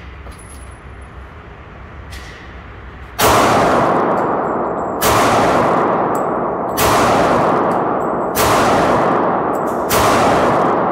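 Five pistol shots from a Glock 32 Gen 4 firing .40 S&W through a swapped-in .40 barrel, a slow deliberate string with about a second and a half to two seconds between shots, the first about three seconds in. Each shot rings on in the echo of an indoor range. The pistol cycles and feeds normally after the caliber conversion.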